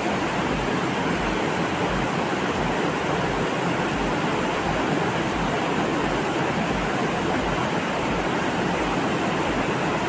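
Fast-flowing mountain river rushing over rocks and rapids, a steady wash of water noise.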